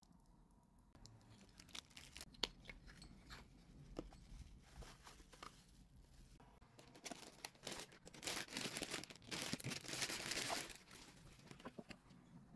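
Thin plastic packaging handled, with scattered light clicks and taps, then a louder stretch of crinkling and tearing in the second half as a plastic bag is opened.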